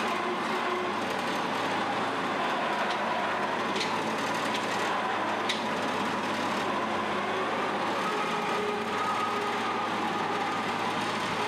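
Forklift converted from an International 201 swather, its 42 hp C-135 engine running steadily, with a wavering whine that rises slightly in the second half. Two sharp clicks come a few seconds in.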